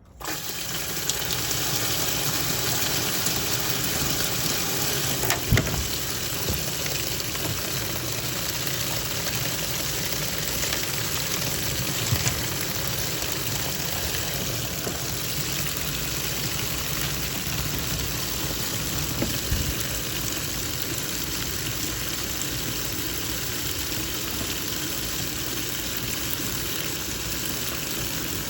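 Water rushing steadily in a twin-tub washing machine, starting abruptly, with a few short knocks about 5, 12 and 19 seconds in.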